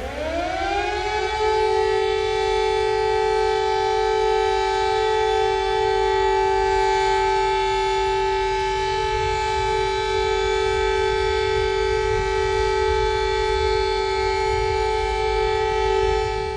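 Civil defence siren winding up in pitch over the first second or so, then holding a steady, unbroken tone with a low rumble underneath.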